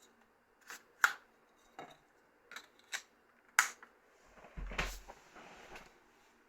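A Nokia 7650 mobile phone handled during testing: about six short, sharp plastic clicks over the first few seconds, then a duller bump and rustle a little after the middle.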